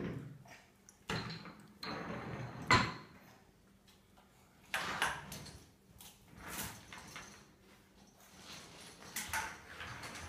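Toy trucks scraping and knocking on a hardwood floor and plastic chair mat as a toddler shifts them about: a handful of short scrapes and bumps, with one sharper knock about two and a half seconds in.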